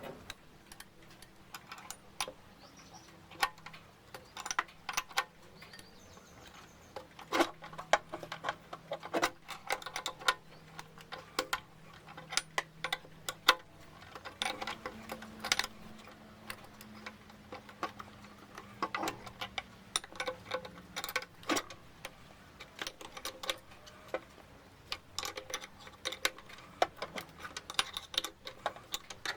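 Irregular metallic clicks and clinks of tools and a workpiece being handled while a thread cut is set up on a mini lathe, over a faint steady low hum.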